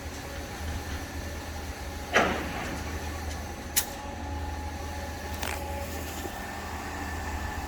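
KCP63 concrete pump truck running steadily with a low drone while pumping, with a heavy clunk about every three seconds as the pump changes stroke, and a short sharp click in between.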